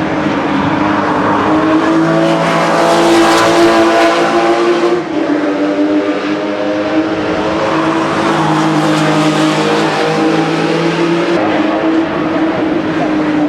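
Porsche sports car engines running hard on a racetrack, several engine notes overlapping. The sound swells about three seconds in and again around nine seconds in, and changes abruptly near five and eleven seconds.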